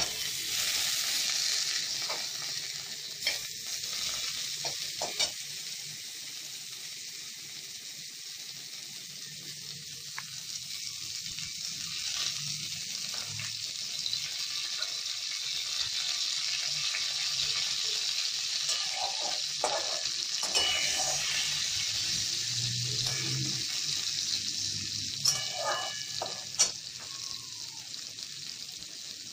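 Pointed gourd (potol) pieces hitting hot oil in a metal wok, with a sudden sizzle that is loudest for the first few seconds and then settles into steady frying. A few sharp clicks and scrapes of a steel spatula against the pan come through it.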